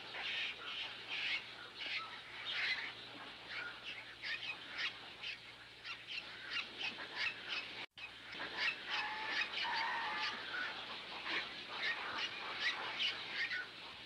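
Greylag geese and ducks calling: many short calls in quick succession. The sound drops out for an instant about eight seconds in.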